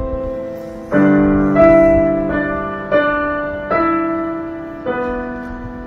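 Piano notes played slowly, a new note or chord struck roughly every second and each left to ring and fade.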